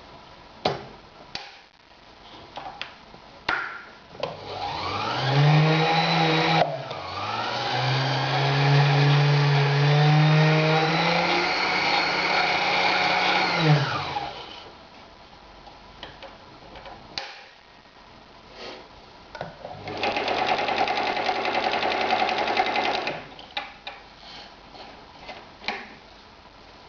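Husqvarna 2760 sewing machine stitching through leather in three runs. A short run speeds up, then a longer run of about seven seconds speeds up, holds, and slows to a stop. A steadier run of about three seconds comes near the end, with light clicks and knocks between the runs.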